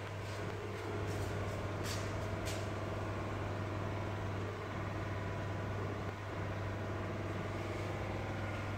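Steady low hum of aquarium equipment such as air pumps and filters, with a couple of faint short hissing ticks about two seconds in.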